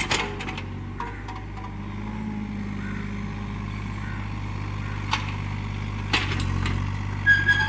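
Hitachi mini excavator's diesel engine running steadily under light hydraulic load as the upper body swings round. A few short sharp clanks come through, the loudest cluster near the end.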